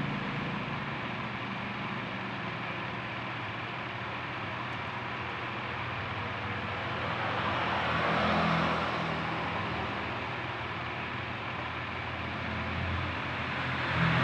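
Road traffic going past: a steady wash of noise with vehicles swelling louder about eight seconds in and again at the end.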